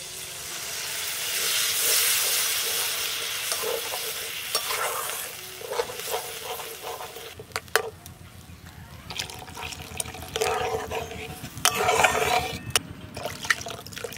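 Coconut milk poured into a hot wok of spice paste fried until the oil has separated: it hisses and sizzles loudly for the first few seconds, then dies down. A spatula then stirs and scrapes the curry, with a few sharp clicks against the pan.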